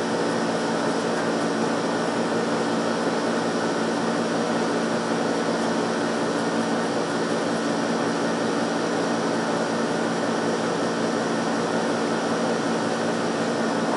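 A steady mechanical whir with a low hum, unchanging throughout.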